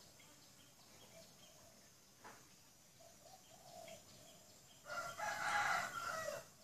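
A single loud animal call, about a second and a half long and in several parts, starting near the end, over a faint outdoor background with soft chirps.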